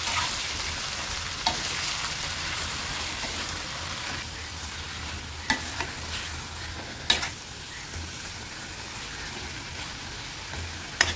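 Stuffed brinjals and masala sizzling in hot oil in a steel kadai as a steel spoon stirs them, with a few sharp clinks of the spoon against the pan.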